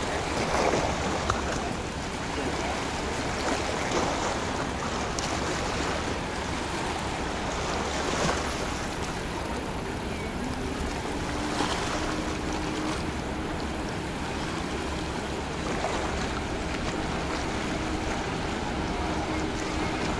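Waves breaking and washing against a stone breakwater, with wind rumbling on the microphone. A faint steady low hum joins about halfway through.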